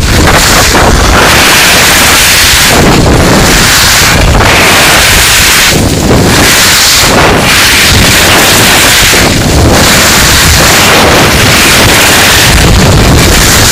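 Loud wind buffeting on the microphone of a skier moving downhill, a rushing roar that surges and dips every few seconds, mixed with the hiss of skis sliding over packed snow.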